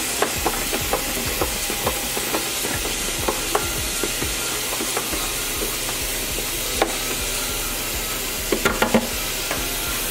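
Tap water pouring steadily into a plastic tub of foamy dye water, with a hand swishing it to mix in the dye, giving frequent small splashes and a few quick sloshes near the end.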